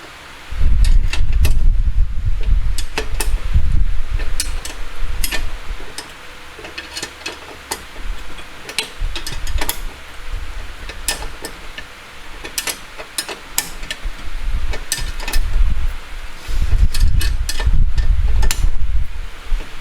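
Ratchet spanner clicking in irregular runs while the rear brake caliper bolts are tightened, over heavy low thuds and rumble from working on the car.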